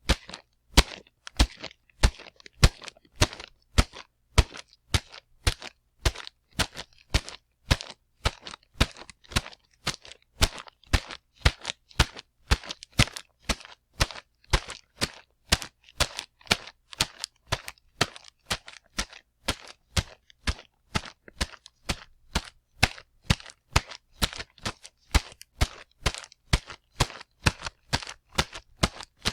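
Footsteps of a man running fast: a steady, quick rhythm of sharp, hard footfalls.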